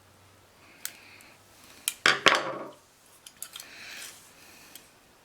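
Small metal hand tools clattering and clinking on a work surface, with one loud clatter about two seconds in and a few lighter clicks before and after it.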